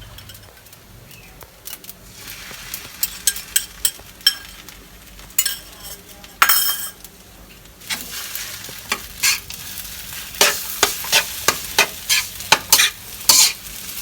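Rice frying and sizzling in a pan while a spatula stirs and scrapes it, with repeated sharp clicks against the pan. The sizzle grows louder about two seconds in, as beaten duck egg is stirred through the fried rice.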